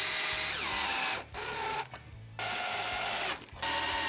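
Cordless drill/driver running screws into a 3D-printed plastic gearbox housing, in four short whirring bursts. Its motor whine falls in pitch as it slows at the end of a burst.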